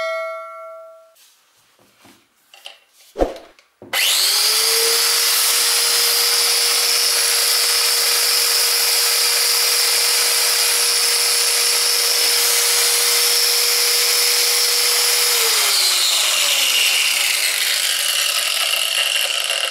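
Bosch PWS 850-125 angle grinder, its motor armature freshly rewound and its bearings replaced, switched on about four seconds in, spinning up quickly and running steadily at full speed with a steady whine. About fifteen seconds in it is switched off and coasts down, its pitch falling.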